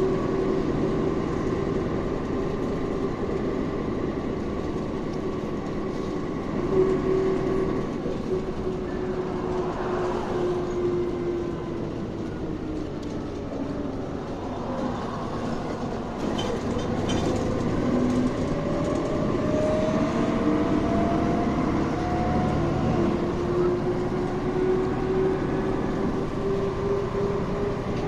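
Inside a moving city bus: steady running rumble with a drive whine that falls in pitch as the bus slows, about ten to fifteen seconds in, then climbs again as it speeds up.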